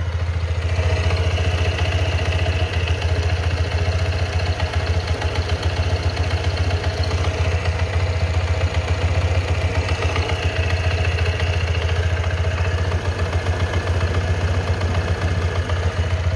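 Honda Vario 160 scooter's single-cylinder engine idling on a cold-morning warm-up, rough rather than smooth, with a clattering 'klotok-klotok' knock from the CVT. The owner does not know whether this is normal.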